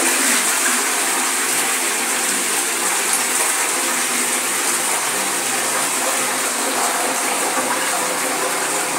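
A 1966 Shanks Sabie toilet flushing from its Shires Lynx 9-litre siphon cistern: a steady rush of water into the bowl.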